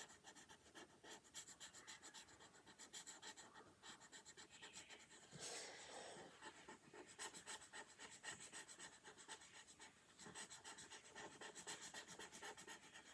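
Black marker scratching on paper in quick, repeated back-and-forth strokes as a small area is colored in, faint throughout. A short, louder rush of noise comes about five seconds in.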